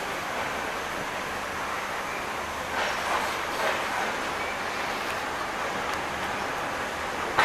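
Passenger train pulling out of a station, heard from an open coach door: a steady rolling rumble and hiss of wheels on rail, with a couple of brief louder rattles about three seconds in.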